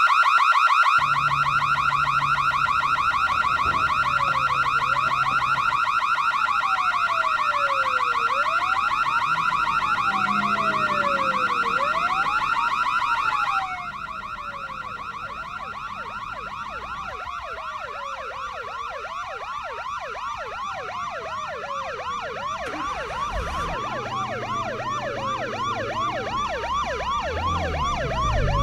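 A fast-warbling alarm sounds continuously while a police siren wails in slow up-and-down sweeps every few seconds. About 14 seconds in, everything drops quieter, as heard from inside a car, and more sirens overlap toward the end over a low car engine hum.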